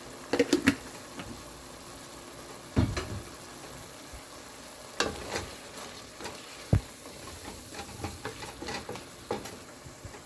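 Chicken pieces sizzling in a pot of spiced oil while being stirred, with scattered scrapes and knocks of the utensil against the pot.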